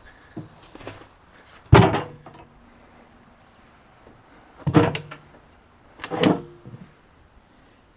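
Three heavy knocks with a short ringing after each, the first about two seconds in and the other two close together near the middle.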